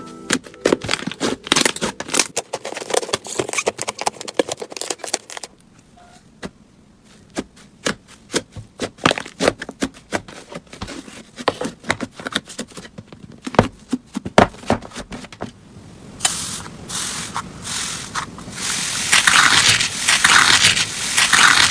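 Slime being squeezed and pressed by hand, making many sharp sticky clicks and pops. It quietens briefly about a third of the way in, and turns into denser, continuous crackling in the last few seconds.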